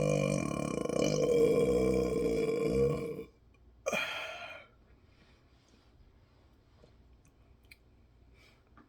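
A person's long, loud, deliberately forced burp with a wavering pitch, cutting off about three seconds in, followed a moment later by a short sound that falls in pitch. Faint clicks follow.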